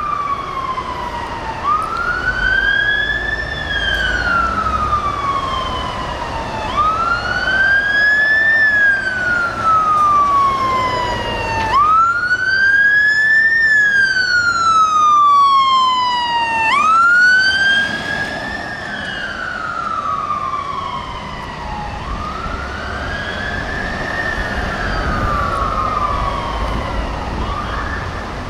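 Fire engine siren on a slow wail, rising and falling about every five seconds, loudest around the middle as the appliance drives past on blue lights and then fading as it moves away. Engine and road noise run underneath.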